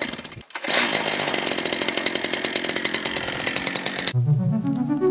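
Bladed weed whacker (brush cutter) engine running steadily at high speed while clearing brush. It cuts off abruptly about four seconds in, and synthesizer music begins.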